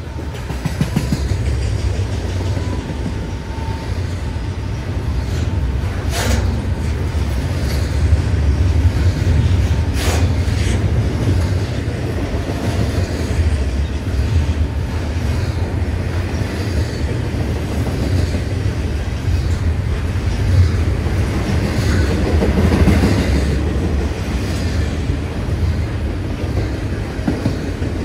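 CN Z148 intermodal freight train rolling past, a steady heavy rumble of wheels on rail. Two sharp clicks come about six and ten seconds in.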